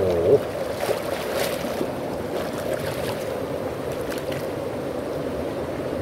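Shallow mountain stream flowing steadily over a pebble bed and rock ledges.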